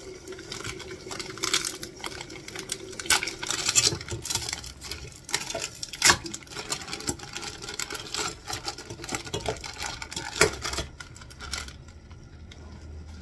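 Frozen pumpkin chunks clattering and knocking as they are handled and dropped into a cooking pot: a quick run of small hard knocks with sharp louder ones about six and ten seconds in, dying down near the end.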